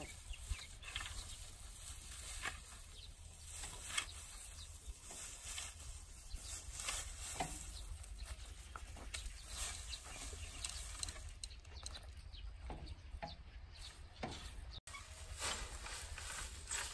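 Scattered dry rustles and crackles over a steady low rumble. This fits dried peanut vines being handled and loaded onto a cart.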